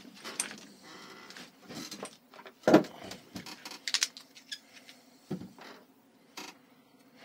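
Hands handling a coil of pressure-washer hose and a roll of Teflon tape on a wooden workbench: soft rustling broken by a handful of sharp clicks and knocks, the loudest about three seconds in.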